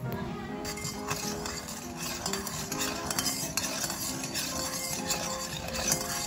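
A metal spoon stirring coconut milk in a stainless steel bowl, scraping and clinking against the metal, starting about half a second in.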